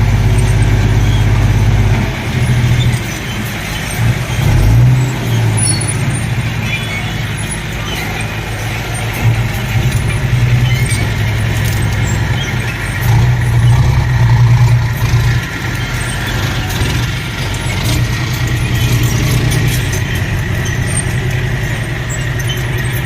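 Heavy diesel engine of construction machinery running steadily, swelling louder several times as it works under load.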